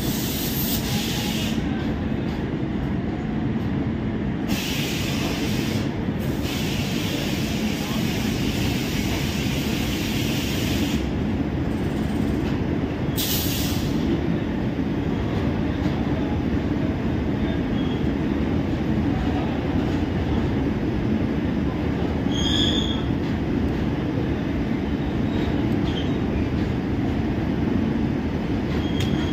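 Steady low hum and rumble of a standing WAP-5 electric locomotive, with stretches of high hiss that come and go several times.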